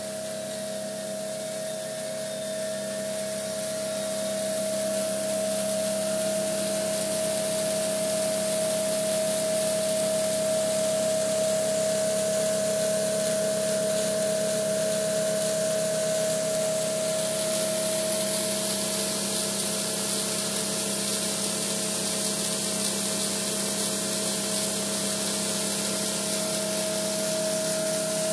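Homemade snow cannon running: the motors of a pressure washer and an air compressor give a steady hum, over the hiss of air and water spraying from the nozzle. The sound grows a little louder over the first few seconds, then holds steady.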